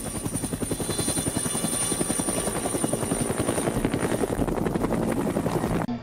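A fast, even mechanical chopping, many beats a second, with a thin high whine over it; it cuts off suddenly near the end.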